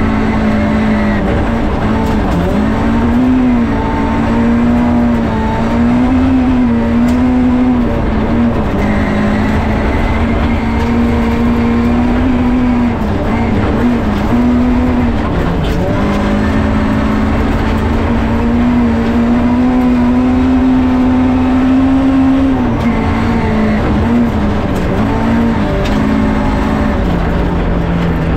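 Rally car engine heard from inside the cabin, held at high revs along a gravel stage, its note dipping briefly several times, with a constant rumble of tyres on gravel underneath.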